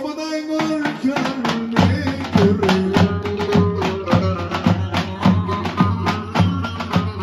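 Folk dance music with davul bass drums beaten with sticks in a fast steady rhythm under a held melody line. About two seconds in, a deep bass comes in and the drum strokes grow heavier.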